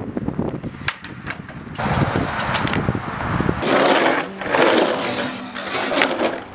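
Skateboard wheels rolling on a curved concrete wall, a loud, rough rumble that starts about two seconds in and grows louder, with a few sharp clicks and taps before it.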